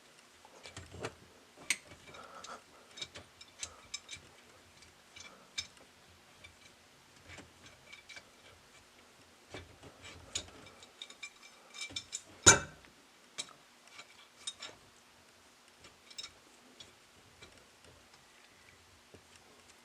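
Scattered light clicks and taps of a wrench on metal faucet fittings as the supply-line nuts are tightened, with one louder clank about halfway through.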